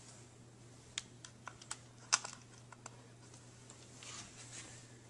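Light clicks and taps of the small drive-retaining bracket being fitted back into a laptop's drive bay, scattered and irregular, the loudest a little after two seconds in, over a faint steady hum.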